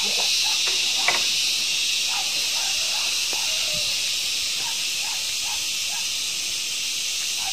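Steady, high-pitched insect chorus filling the background, with a single knock about a second in and faint short chirps scattered through.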